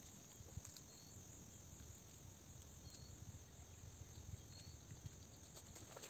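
Near silence: faint outdoor ambience, with three brief, faint high chirps about two seconds apart.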